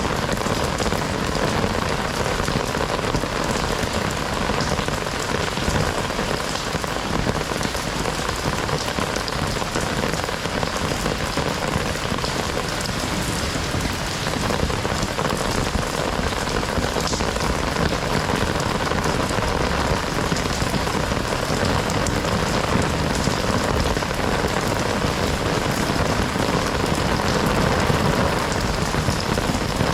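Heavy rain falling steadily, a dense hiss of drops pattering on surfaces with no let-up.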